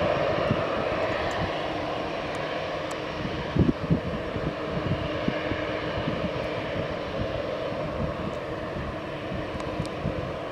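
Rolls-Royce Trent 1000 turbofans of a Boeing 787-8 Dreamliner at climb power just after takeoff: a broad jet roar that slowly fades as the aircraft climbs away. A couple of brief low thumps come nearly four seconds in.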